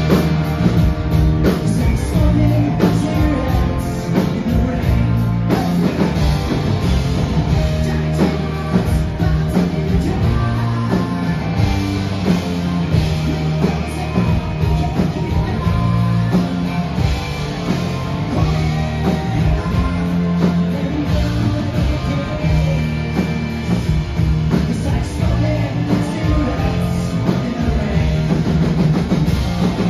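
Live country-rock band playing loud and without a break: fiddle, acoustic and electric guitars, and drums.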